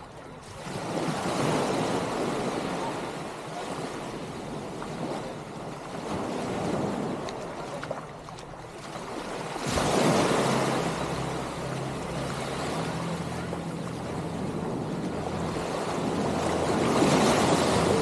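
Small waves breaking and washing up a sandy beach, swelling and fading several times, loudest about ten seconds in and again near the end. A faint low steady hum joins from about ten seconds in.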